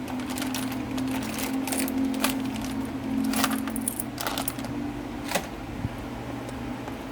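Scattered light clicks and small metallic clinks over a steady low hum.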